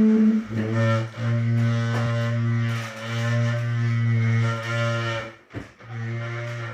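A chair creaking in long, low, steady tones, several in a row with short breaks between them, so that it sounds almost like a bowed bass note.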